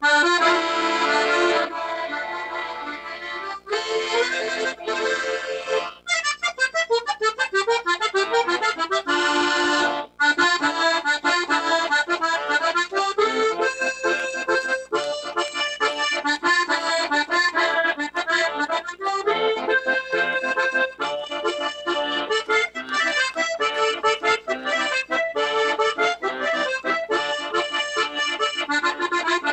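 Accordion playing a medley of tunes: full held chords at first, a fast sweeping run of notes about six seconds in, then, after a brief break around ten seconds, a lively rhythmic tune.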